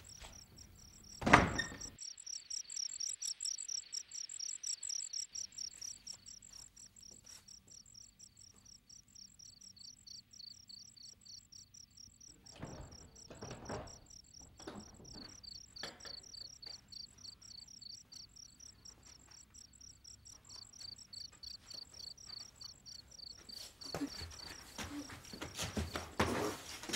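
Crickets chirping in a steady pulsing chorus. About a second in, a wooden door shuts with one loud bang. Near the end comes a stretch of louder scuffling and knocks as two people grapple.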